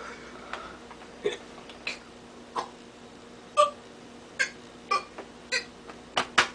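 A man hiccupping repeatedly: about nine short, sharp hiccups, roughly one every half second to second, with two in quick succession near the end.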